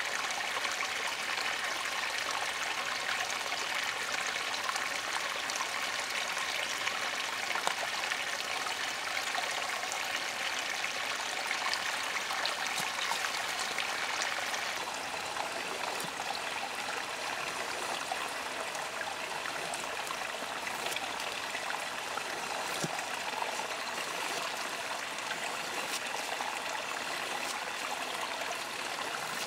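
Steady rush of a flowing stream, with a few faint clicks scattered through it.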